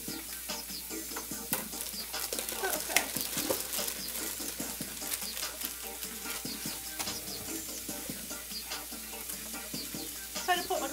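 Food frying in oil in a pan, a steady sizzle with crackles, as a utensil stirs and scrapes it around the pan. Faint background music.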